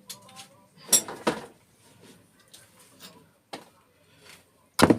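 A few scattered metallic knocks and clinks of microwave scrap parts and hand tools being handled and struck, the loudest pair about a second in.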